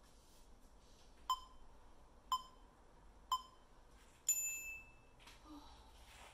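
Countdown timer beeps: three short pings a second apart, then a longer, higher-pitched tone that marks the end of the timed stretch and the start of a rest.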